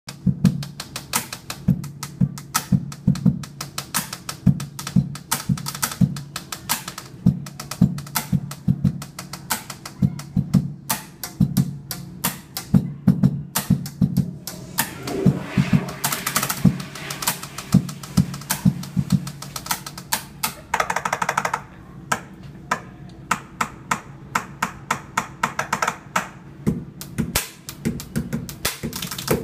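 Pen tapping: a fast drumming rhythm beaten out with a pen and hands on a bathroom countertop, sharp clicks over deeper thuds.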